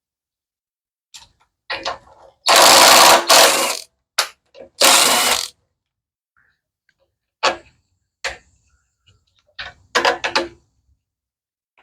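Hand and tool noise from taking apart a pressure washer engine's air filter and carburetor: scattered clicks and knocks of metal and plastic parts, with two loud noisy tool bursts of about a second each in the first half and a quick run of knocks near the end.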